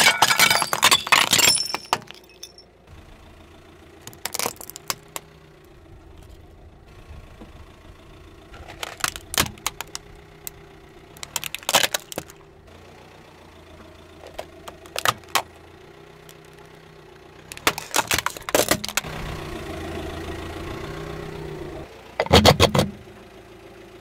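Car tyre rolling over and crushing brittle objects: plates cracking and crunching loudly at the start, then about half a dozen shorter cracks and snaps spread through, over the car's engine running steadily at idle.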